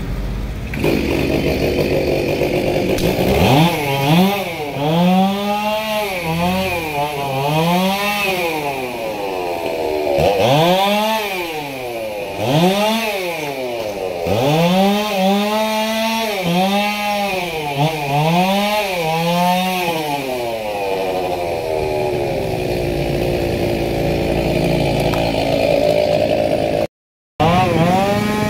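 Two-stroke chainsaw run high in a tree, its engine revving up and falling back over and over, about once a second, as it works through branches. It then runs more steadily, and it breaks off briefly near the end.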